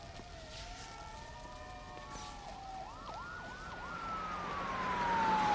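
Several emergency sirens wailing at once, their pitches overlapping as they rise and fall. Loudness builds, and one siren's tone slowly falls near the end.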